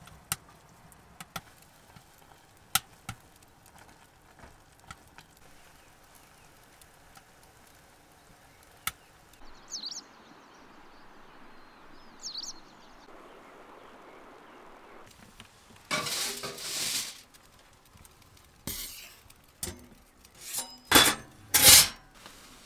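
Chopsticks clicking and scraping in a lightweight camping pot as instant noodles are stirred. Midway comes a soft steady hiss of rain with two short high chirps. Then dishes and cookware clatter as they are set down on a stainless-steel counter, loudest near the end.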